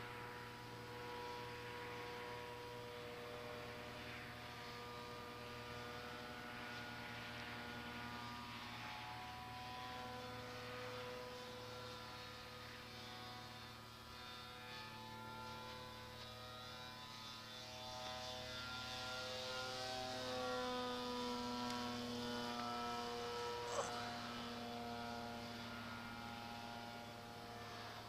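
Electric motor and propeller of a small RC plane whining in flight, its pitch stepping up and down with the throttle, over a steady electrical hum. A single sharp click near the end.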